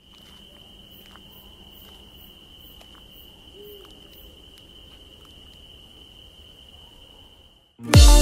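Night-time ambience of a steady, high cricket trill with a few faint clicks. Just before the end it cuts to loud music with a heavy bass beat.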